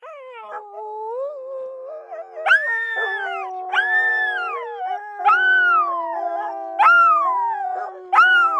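Several dogs howling together at different pitches: long, steady lower howls underneath, and from about two and a half seconds in a higher howl that rises sharply and falls away, repeating about every second and a half.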